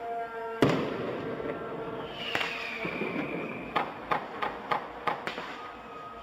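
Fireworks going off: one sharp, loud bang about half a second in that echoes off the surroundings, then a falling whistle, then a quick run of about six cracks.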